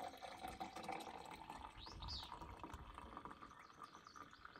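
Coffee poured in a steady stream into a tall stainless steel Stanley tumbler, the liquid filling the flask.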